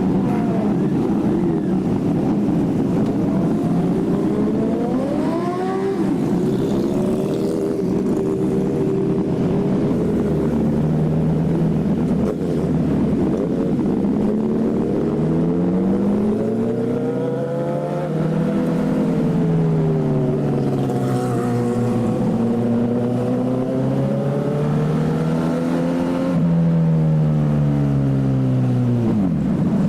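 Motorcycle engines with loud exhausts running under load, their pitch climbing and falling several times as the throttle is opened and closed, with long rises and falls near the middle and end.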